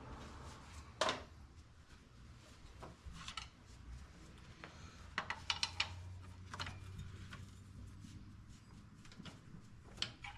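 Hand tools working on a car's power steering pump as it is unbolted: scattered light clicks and taps of metal, a small cluster of them about halfway, over a low steady hum.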